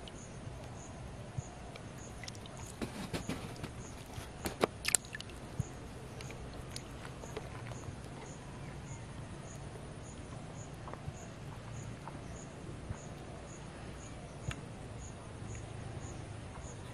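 Outdoor ambience by a pond: a steady low hum under a faint high insect chirp repeating about twice a second, with a few short sharp clicks and taps between about three and five seconds in.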